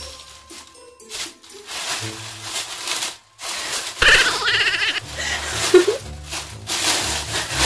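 Tissue paper rustling and crinkling as it is pulled out of a cardboard box, over background music with a steady bass line. A girl laughs about four seconds in.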